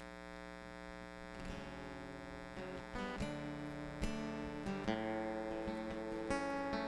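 Live band playing a quiet instrumental intro: acoustic guitar strumming over sustained chords, gradually growing louder.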